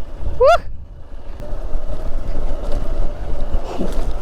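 Hero Xpulse motorcycle running along a rough off-road trail, with wind buffeting the helmet microphone and a steady low rumble. A brief rising squeal comes about half a second in.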